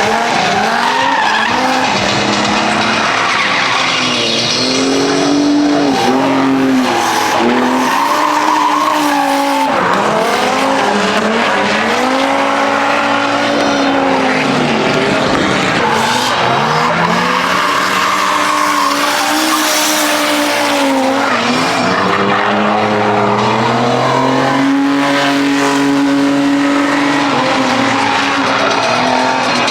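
Drift car engine revving up and down again and again, its pitch climbing and dropping every couple of seconds, with tyres squealing and skidding over it.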